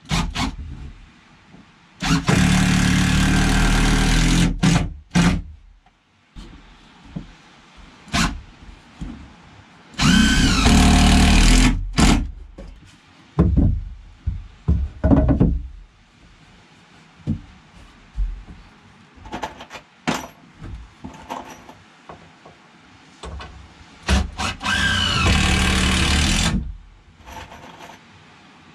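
Cordless drill driving screws into wooden framing boards, in three runs of about two seconds each, the motor's whine climbing in pitch during the later two. Short knocks and clicks of boards being set in place come between the runs.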